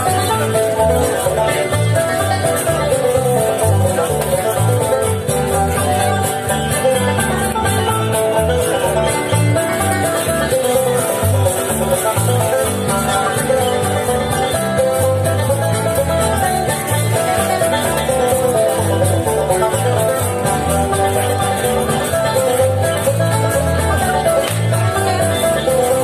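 Instrumental bluegrass-style country music with banjo and guitar over a steady beat.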